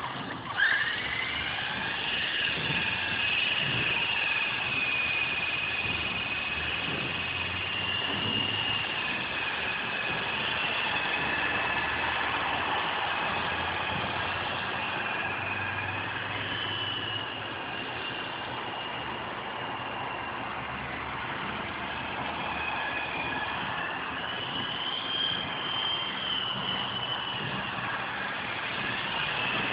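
Small battery-powered RC helicopter's electric motor and rotors whining as they spin up about half a second in, then a steady high whine that drifts up and down in pitch as the helicopter flies.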